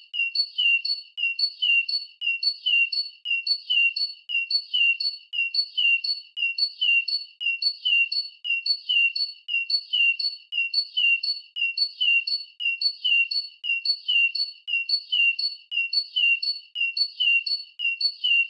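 Bird chirp sound effect: the same short, high chirp repeated at a perfectly even pace, about two a second, as a continuous loop.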